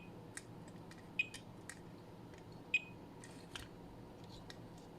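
Digital multimeter on diode test giving three short, high beeps as its probes are touched across diodes on a switching power supply board, with faint ticks of the probe tips against the parts.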